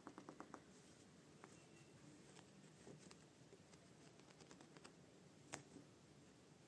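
Faint clicks and ticks of a lop-eared rabbit nibbling and tugging at a knit sweater: a quick run of about six clicks at the start, scattered ticks after, and one sharper click near the end.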